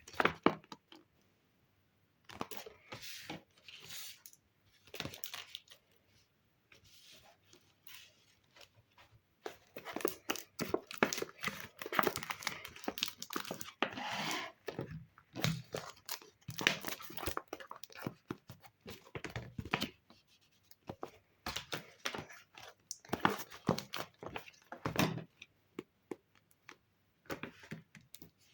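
Paper being handled: crinkling and rustling in irregular bursts, with short tearing sounds, busiest in the middle and with brief pauses between bursts.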